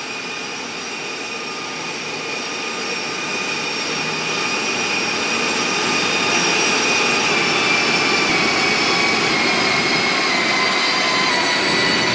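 Amtrak passenger train running along the rails, a steady rolling rumble and rattle getting louder over the first six seconds and then holding. Thin high tones that drift slowly lower sit over it.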